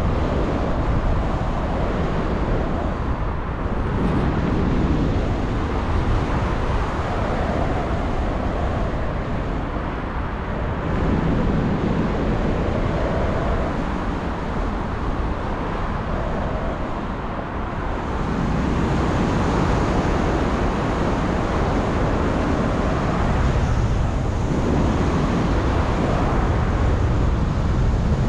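Wind rushing over the microphone during a paraglider flight: a steady, heavy rumble of airflow that swells and eases every few seconds.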